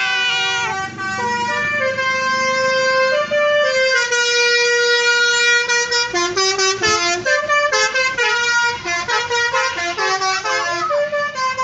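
Bus 'telolet' basuri horn, a multi-tone air horn playing a tune with several notes sounding together: long held notes at first, then quicker changing notes from about halfway.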